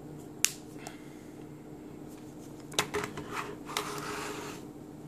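Smartphones being handled and set down on a tabletop: a sharp click about half a second in, then a few knocks and a brief rubbing slide near the middle, over a faint steady hum.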